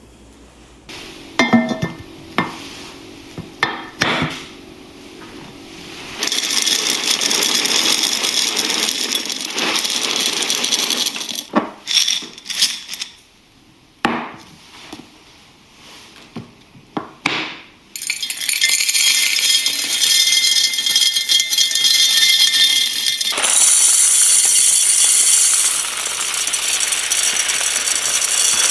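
Pantry containers and jars being handled: a series of knocks and clinks, broken by three long stretches of steady rushing hiss, like dry goods being poured into containers.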